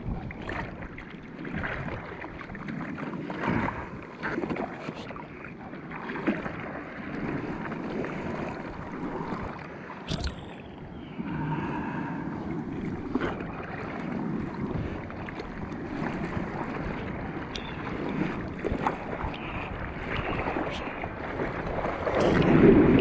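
Seawater lapping and splashing close against a bodyboard and a camera at the water's surface, with many small sharp splashes. It grows louder near the end as a wave rises under the board.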